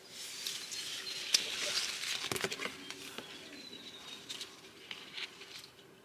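Rustling and crackling, with a few sharp clicks, busiest in the first half. A brief thin high note comes a little past the middle.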